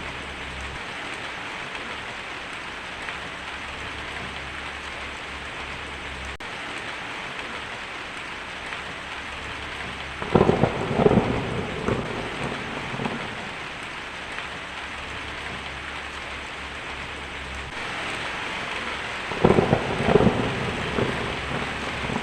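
Heavy rain drumming steadily on a tin roof, with a crackling roll of thunder about ten seconds in and another near the end.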